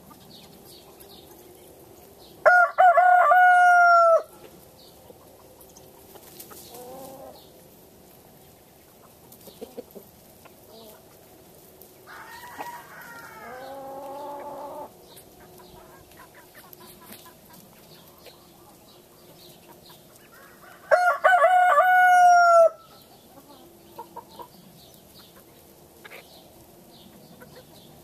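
Roosters crowing in a foraging chicken flock: two loud crows, about 2.5 s and 21 s in, each lasting under two seconds, with a fainter, longer call around 12 s in. Soft clucking goes on between them.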